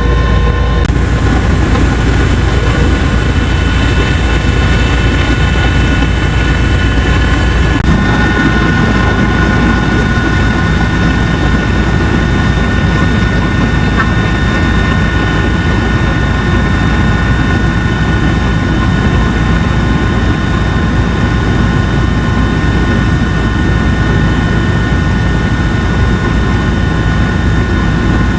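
Helicopter in flight: the loud, steady drone of its engine and rotor, with a slight shift in tone about eight seconds in.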